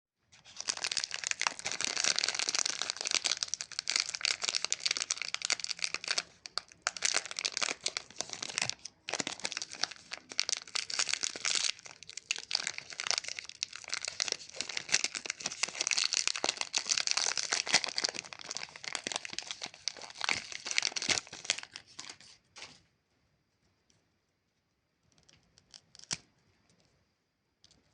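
Plastic wrapping of Chupa Chups lollipops crinkling and tearing as it is unwrapped by hand, a continuous crackle that stops abruptly a little before the end, followed by a few faint clicks.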